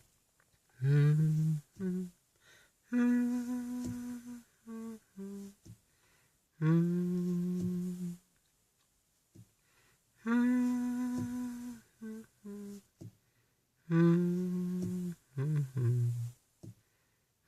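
A person humming a slow wordless tune, in phrases of one long held note followed by a few short notes, four times over.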